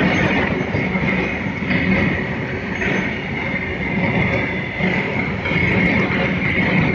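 Long freight train of tank wagons rolling past at close range, a steady loud rumble and clatter of wheels on the rails, with a high squeal that swells and fades over it.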